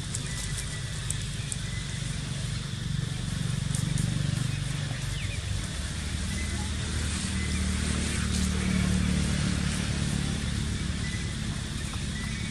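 Low hum of a motor vehicle engine going by, swelling twice, over a steady high hiss.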